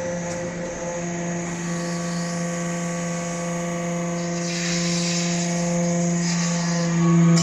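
Hydraulic briquetting press running: a steady hum from its hydraulic pump and motor, with a hiss in the middle and the hum swelling louder near the end.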